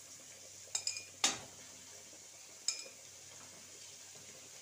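A plate knocking against the rim of a metal kadhai while chopped fenugreek leaves are tipped in: four short, ringing clinks, the loudest a little over a second in.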